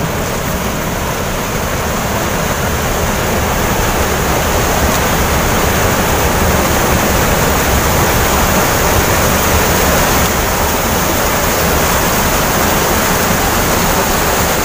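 Floodwater of a swollen river pouring over a concrete weir and churning below it: a loud, steady rush of water that grows a little louder over the first few seconds.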